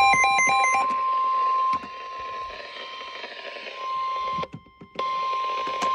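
NOAA Weather Radio warning alarm tone: one steady tone near 1,050 Hz coming over a weather radio receiver with static hiss, cutting out briefly about four and a half seconds in. A run of stepping electronic beeps ends under it within the first second.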